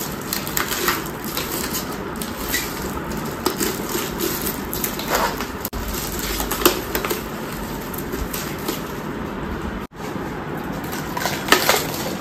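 Scattered clicks and light knocks of plastic and metal pedestal fan parts being handled and screwed together during assembly, over a steady hiss.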